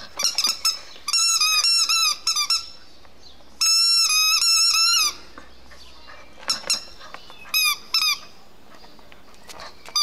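Spiky rubber dumbbell squeaky toy squeezed as a Rottweiler puppy chews it: a run of short high squeaks, one long drawn-out squeak near the middle, then two more short ones.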